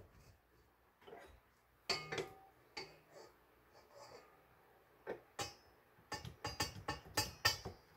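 Stainless steel mixing bowl and metal beater knocking and clinking as they are fitted onto a stand mixer, which is not running. A few scattered knocks, then a quicker run of clicks and rattles in the last two seconds.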